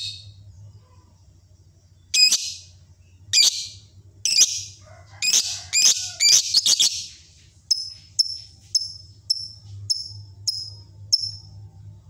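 Fischer's lovebird calling: a string of loud, harsh, high-pitched shrieks about a second apart, then a quicker run of about eight shorter chirps, roughly two a second. A faint low steady hum lies underneath.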